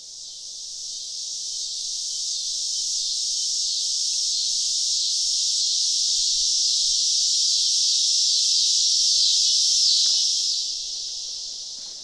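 Cicada chorus: a dense, steady high-pitched buzz that swells in, holds, then fades away over the last two seconds.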